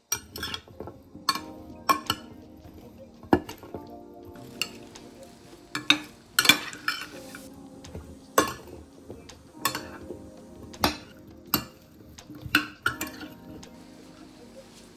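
Metal spoon stirring pumpkin cubes in a glass baking dish, clinking and knocking against the glass about once a second, with a short scrape partway through. Background music plays underneath.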